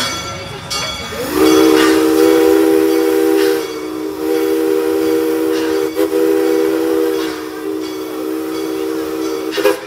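Steam locomotive's chime whistle blowing one long blast of about eight seconds, several notes sounding together as a steady chord, starting about a second in and loudest at first. Steam hisses around it.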